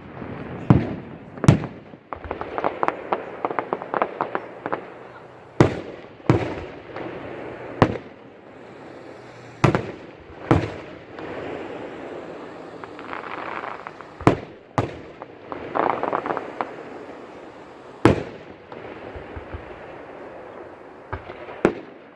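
Fireworks display: about a dozen sharp bangs of aerial shells bursting at irregular intervals, with fast crackling in between, densest a few seconds in.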